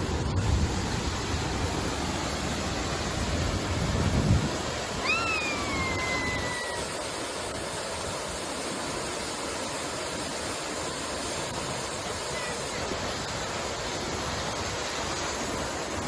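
Waterfall rushing steadily, a constant hiss of falling water. Wind buffets the microphone for the first four seconds, and a single high call falls in pitch about five seconds in.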